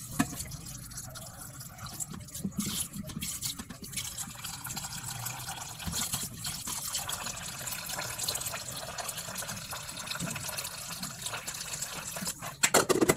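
Tap water running into a metal pot of chicken feet in a steel sink, splashing as a hand swishes the feet around and the pot fills. A few loud sharp knocks near the end.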